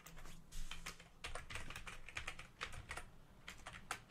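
Typing on a computer keyboard: a quick, irregular run of key clicks as a short word is typed.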